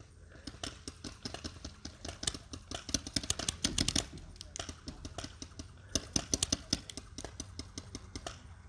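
Paintball markers firing: many sharp pops in rapid strings, with a dense volley about three seconds in and another about six seconds in, over a steady low hum.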